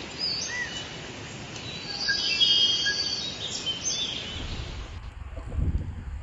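Jungle ambience: an even hiss full of bird chirps and whistles, busiest two to three seconds in. Near the end it gives way to wind buffeting the microphone.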